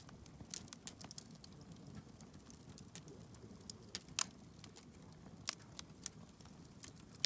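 Wood campfire crackling: irregular sharp pops and snaps, a few louder ones, over a faint low rumble.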